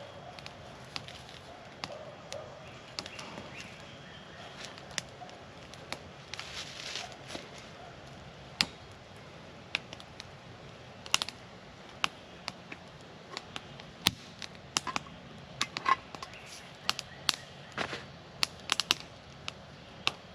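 Campfire crackling, with irregular sharp pops and snaps of burning wood, some much louder than others.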